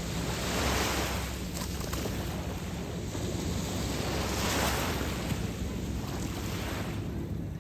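Waves washing onto the shore, the wash swelling about a second in and again past the middle, with wind rumbling on the microphone.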